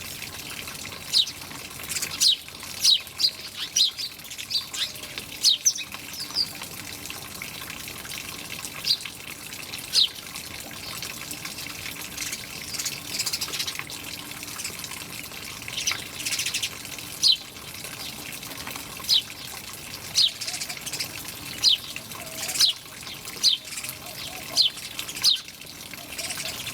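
Small birds chirping in many short, sharp chirps that fall in pitch, scattered irregularly and sometimes in quick runs, over steady trickling water.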